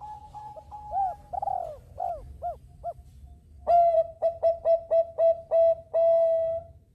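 Zebra dove (perkutut) cooing: a series of short, rounded coo notes. After a brief pause past the middle comes a louder phrase of quick staccato coos that ends on a longer held note.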